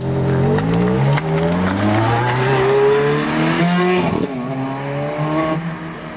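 Ferrari F430 V8 accelerating hard away. The revs climb, drop back with quick upshifts about one second and four seconds in, climb again, and fade as the car pulls away.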